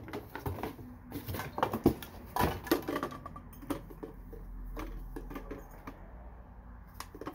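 Handling noise from a small 2-quart crock pot, its plastic lid and its cardboard box: scattered light knocks, scrapes and rustles as the pot is lifted out of the box, busiest in the first three seconds.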